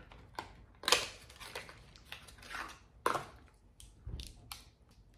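A small cardboard product box being opened by hand: the cardboard scrapes and rustles, with a few sharp snaps, the loudest about a second in and again about three seconds in.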